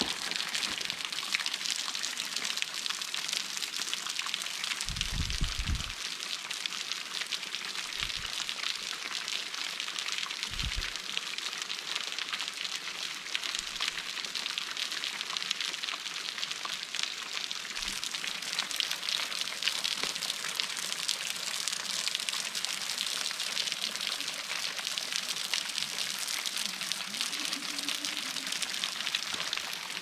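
Steady hiss of water with fine crackling in it, and a few soft low bumps about five, eight and eleven seconds in.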